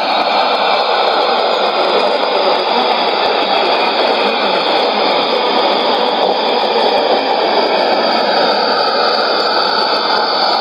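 Sony ICF-2001D shortwave receiver tuned to 5905 kHz, putting out a steady rushing noise: the strange-sounding MBR test transmission.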